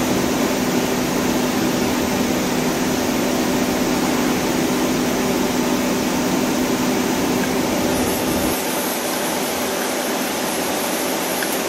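Hyundai Kia SKT-250MS CNC turning center running under power: a steady mechanical hum with a constant low tone. About eight and a half seconds in, the deepest part of the hum drops away.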